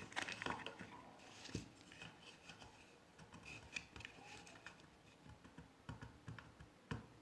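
Faint clicks, taps and rubbing of hair-dryer parts being handled and fitted back into the plastic housing, with a slightly louder knock about a second and a half in and another near the end.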